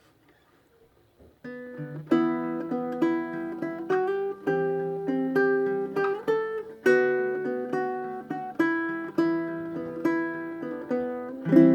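Kala SMHB all-solid mahogany baritone ukulele being picked, a melody of plucked notes over ringing lower notes, starting about a second and a half in.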